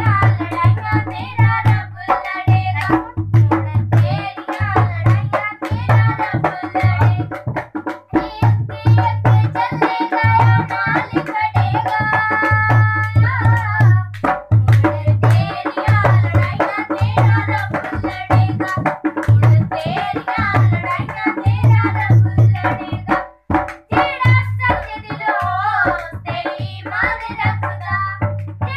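Children singing a worship song over music with a steady, regular drum beat.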